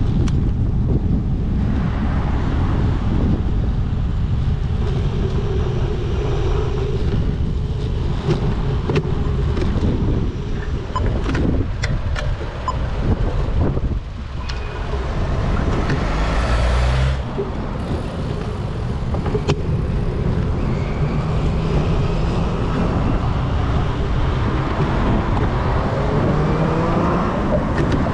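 Road traffic heard while riding a bicycle: cars and other motor vehicles going by, with wind rumbling on the microphone. In the last several seconds a vehicle's engine rises in pitch as it speeds up.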